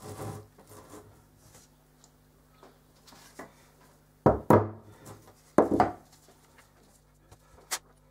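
Small metal parts of a vintage crank hand drill being handled, rubbed and fitted together by hand: two loud short scrapes about a second apart midway, softer knocks and rubs around them, and a sharp click near the end.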